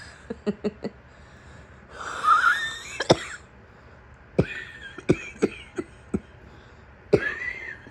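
A sick woman's coughing fit: runs of short, sharp coughs broken by two long wheezing gasps for breath, one about two seconds in and one near the end.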